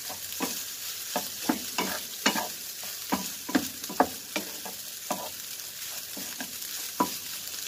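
Spatula stirring and pressing fried rice in a stone-coated non-stick frying pan, breaking up clumps of rice, with sharp taps and scrapes about twice a second over a steady sizzle of frying.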